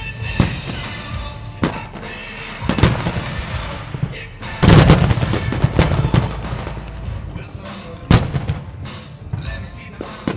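Aerial firework shells bursting with sharp bangs: single booms every second or so, then a dense run of bursts about halfway through, the loudest part. Music plays throughout.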